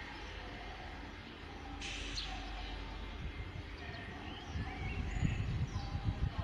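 Small birds chirping in short calls, some rising in steps, over outdoor background noise, with an irregular low rumble growing louder from about four and a half seconds in.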